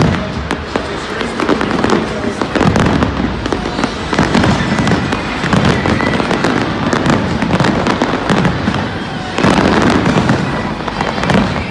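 Aerial fireworks display: a dense, continuous run of overlapping bangs and crackles, with a louder cluster of bursts about nine and a half seconds in.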